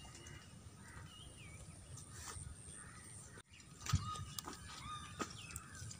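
Faint bird calls, short chirps and whistles, over quiet open-air ambience, with scattered clicks and one low thump about four seconds in.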